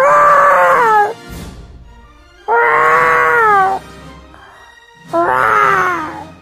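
A cat meowing three times, each a long drawn-out meow of about a second that drops in pitch toward its end.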